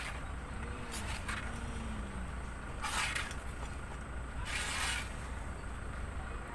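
A plastic spatula scrapes petis sauce around a cobek mortar and onto fruit. There are about four short, hissing scrapes, the longest about three seconds in and near five seconds in.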